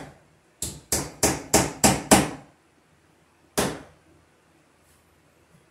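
A hammer driving a nail into a wooden wall stud: six quick blows about three a second, then one last blow about a second and a half later.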